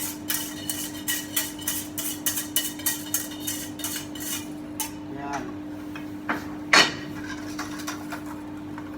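A metal spoon clinking against a pot while stirring the sugar marinade, about three to four clinks a second, stopping about five seconds in; two louder knocks follow near the six- and seven-second marks. A steady low hum runs underneath.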